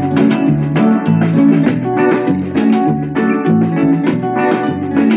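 Upbeat commercial jingle music with a steady beat, played loud at near full volume through a TCL 32-inch LCD TV's built-in speakers.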